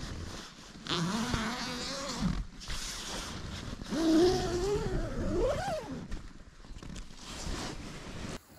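A zipper being pulled in two long strokes, the first about a second in and the second near the middle, each with a whirring pitch that rises and falls with the speed of the pull, followed by a few shorter rustling tugs.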